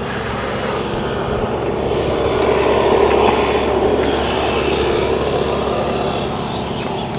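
A motor vehicle's engine passing by, growing louder to a peak about three seconds in and then fading away, with a few faint clicks on top.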